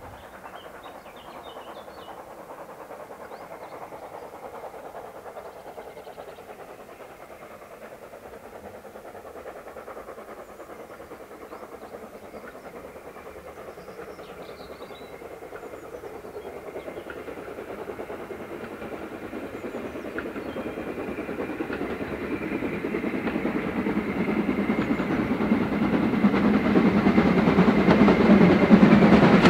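BR Standard Class 4MT 2-6-0 steam locomotive working a train, its exhaust chuffing in quick beats. It grows steadily louder as it approaches and is loudest at the end.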